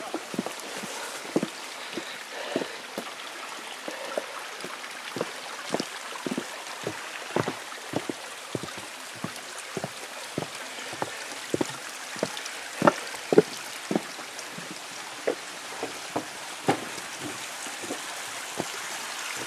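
Footsteps on wooden boardwalk planks, about two steps a second, over a steady hiss of running water.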